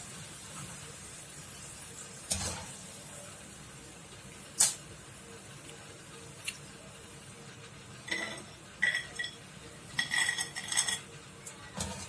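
A metal spoon clinks and scrapes against a kadai as fried masala peanuts are lifted out of the hot oil, with a faint steady sizzle underneath. A few single sharp knocks come first, then bursts of ringing clinks about eight and ten seconds in.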